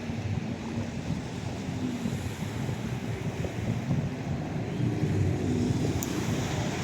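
Wind buffeting the microphone over the wash of sea water and waves, with a faint low hum underneath.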